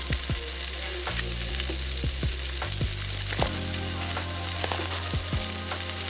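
Broccoli and carrots sizzling in a cast-iron skillet over campfire coals: a steady frying hiss with frequent short sharp pops and crackles.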